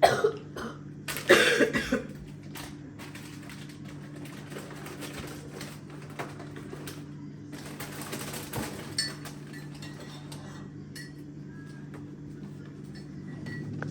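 Frozen food packages being handled and stacked into a deep freezer: plastic rustling and light knocks. Two louder noises come in the first two seconds, and a steady low hum runs underneath.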